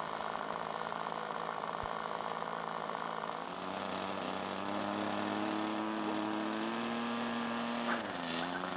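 RC model airplane engine running on the ground at a steady idle, a buzzing hum whose pitch dips slightly near the end.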